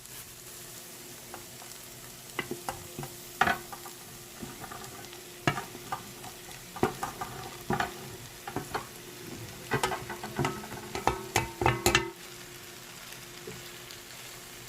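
A spoon scrapes and knocks against a cooking pot as okra is stirred into a sizzling onion-tomato masala. There is a steady low sizzle throughout, and the irregular clatter stops about twelve seconds in.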